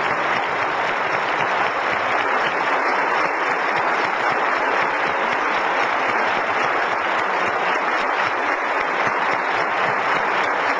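A large audience in an auditorium applauding, dense and steady throughout.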